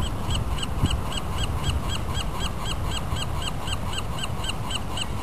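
A rapid, even series of short high chirps, about five a second, over a steady low rushing noise of wind and surf on the beach.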